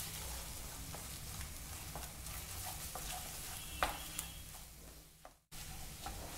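Egg and shredded cabbage sizzling in a nonstick pan while a spatula stirs and breaks up the eggs, with scattered scrapes and taps against the pan. The sound cuts out for a moment about five and a half seconds in.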